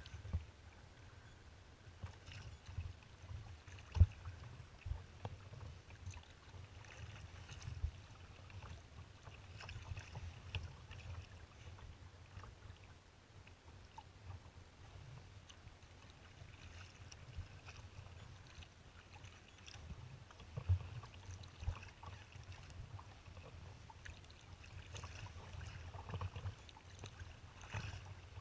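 Kayak paddling on choppy water: water splashing from the paddle strokes and lapping at the hull every second or two, over a low rumble of wind buffeting the microphone. There is a sharp knock about four seconds in.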